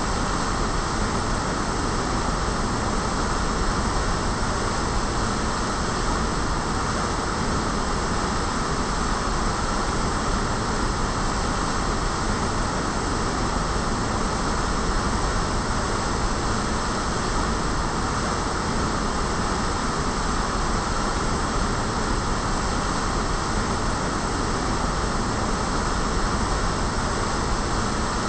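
Heavy water from a concrete fountain pouring and splashing into its pool in a steady rush.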